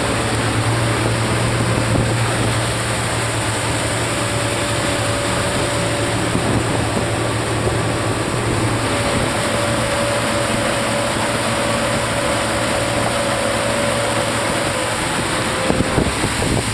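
Twin Honda 200 hp four-stroke outboard engines running steadily with the boat underway, mixed with wind and water rush. A steady hum in the engine sound drops out near the end.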